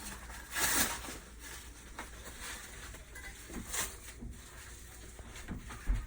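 Packaging being unwrapped and handled: irregular rustling and crinkling with a few light knocks, the loudest rustles about half a second in and near four seconds in.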